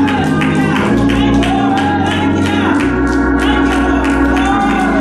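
Gospel music with a steady beat, sustained organ chords and a moving bass line.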